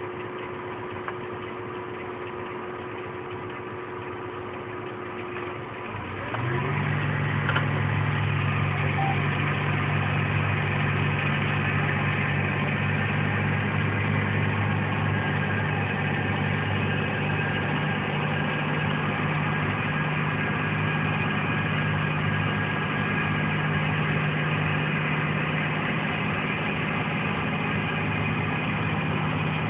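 Tractor engine running steadily during field work: a quieter steady hum, then about six seconds in a louder, deeper engine drone sets in and holds steady.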